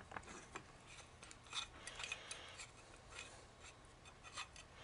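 Faint scattered clicks and scraping as metal microphone parts are handled and screwed together, with a part being tightened onto its thread.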